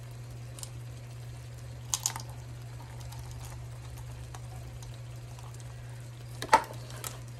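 Measuring spoons and a measuring cup clicking against each other as they are handled, with a few sharp clicks, the loudest about six and a half seconds in. Faint popping of a boiling chocolate sugar mixture and a steady low hum run underneath.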